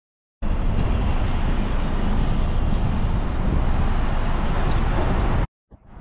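Street noise: a steady low rumble of road traffic that starts abruptly about half a second in and cuts off abruptly just before the end, with faint light ticks about twice a second.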